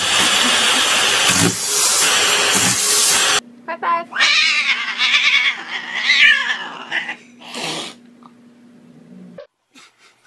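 A loud, even rushing noise for about three and a half seconds, then a cat yowling in several long calls that rise and fall, over a low steady hum. The sound drops to near quiet near the end.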